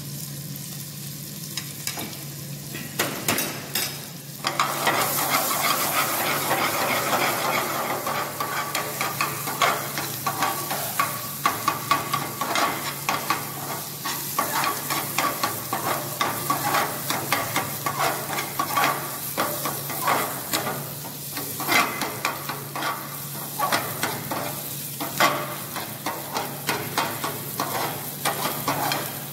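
Chopped onion, ginger and green chilli sizzling in hot oil in a metal pan while a stainless steel ladle stirs them, its scraping giving frequent sharp clinks against the pan. The sizzle grows louder about four seconds in.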